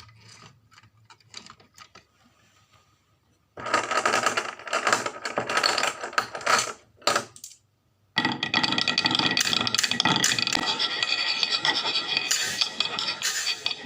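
Marbles clicking and rattling down a wooden marble run: a few scattered clicks at first, then a dense clatter from about three and a half seconds in, a brief pause near the middle, and a dense clatter again for the rest.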